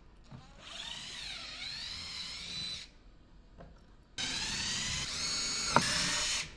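Cordless drill/driver whining in two runs as it works screws out of a plywood crate lid, the motor pitch dipping and rising in the first run and rising then holding in the second, with a sharp click near the end.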